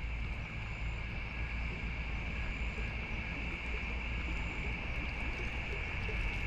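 Steady outdoor ambience: a low rumble, with a constant high-pitched drone over it.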